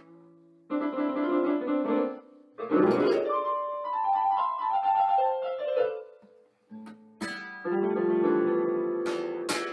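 Electronic keyboard and nylon-string acoustic guitar played together: a held chord, a sharply struck chord about three seconds in, then a descending run of single notes. Near the end a held keyboard chord rings, with a sharp click just before it fades.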